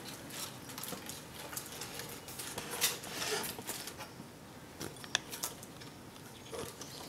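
Light handling noise of wires and small parts rustling and clicking as hands tuck the wiring into the wooden cuckoo clock case, with a sharp click about five seconds in.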